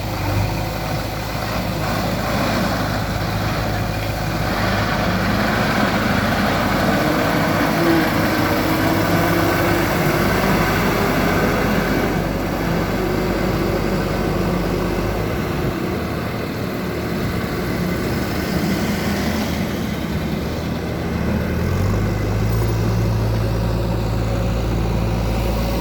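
Diesel engines of a JCB 3DX backhoe loader and a tipper lorry running during loading. The engine pitch shifts as the backhoe works under load. A steady low hum drops away about halfway through and comes back a few seconds later.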